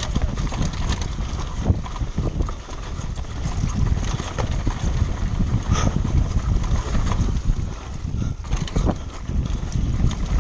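Mountain bike clattering and rattling over a rough, rocky trail during a fast descent, with a constant rumble and wind noise on the microphone.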